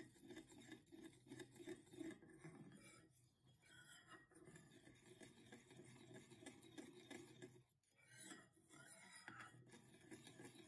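Faint scraping of a metal spoon against a ceramic bowl, stirring melted chocolate ganache, with two short pauses in the strokes.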